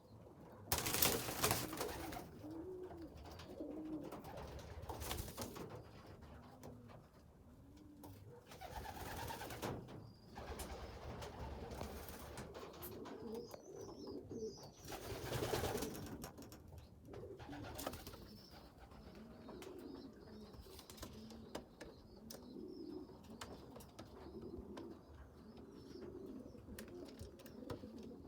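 Pigeons cooing over and over, low repeated calls, broken by several loud bursts of noise about a second long, the loudest about a second in and another around the middle.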